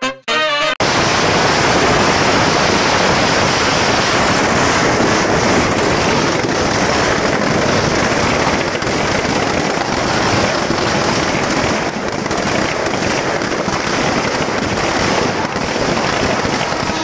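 Firecrackers in a burning Ravan effigy going off in one continuous crackle, without a break.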